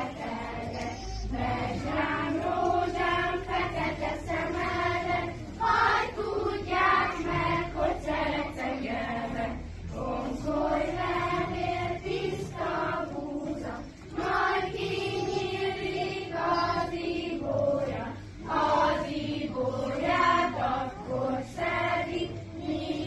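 A group of young voices singing together in chorus.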